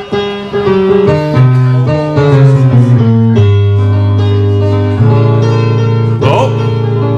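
Instrumental music with no singing: a run of held chords that change every second or so, with two longer chords near the end.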